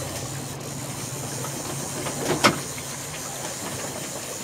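Steady wind and water noise on an open boat, with one sharp knock about halfway through.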